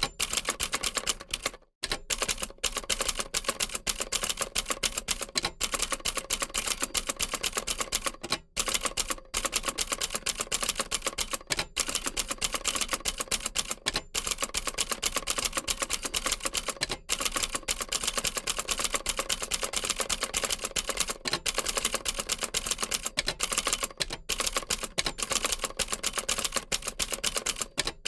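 Old manual typewriter being typed on steadily: a rapid, uneven run of key strikes with brief pauses between bursts.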